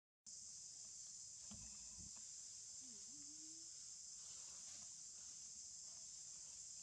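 Faint, steady high-pitched insect chorus drone, with a couple of soft low knocks about a second and a half in and a brief faint rising call about three seconds in.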